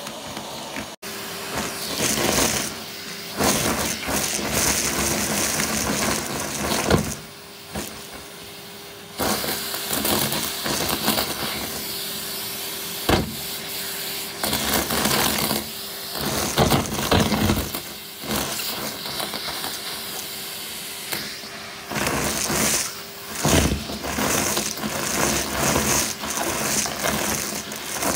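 Vacuum cleaner running with a steady motor hum and rushing air, with a brush attachment sucking up shredded paper filler and foil confetti from a carpet. The noise is uneven, louder and quieter by turns as the nozzle is pushed into the pile and pulled back.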